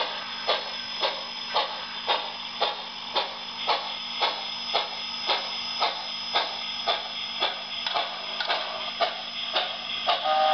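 Soundtraxx heavy-steam sound decoder in an HO-scale 2-8-0 steam locomotive model, playing steady steam exhaust chuffs at about two a second through a G-scale speaker. Just at the end the three-chime Hancock whistle starts to sound.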